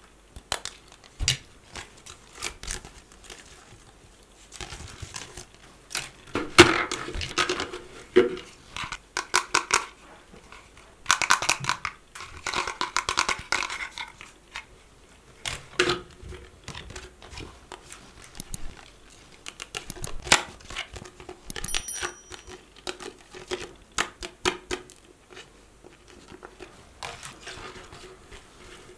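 Surprise-toy packaging being unwrapped by hand: crinkling and tearing in a few longer stretches, among many sharp clicks and taps of handling.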